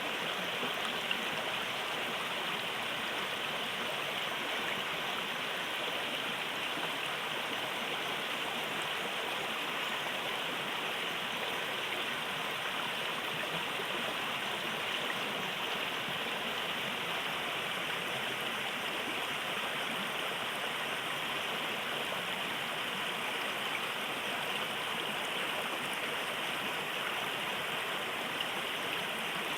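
River water flowing steadily over rocks, an even rushing and babbling with no change.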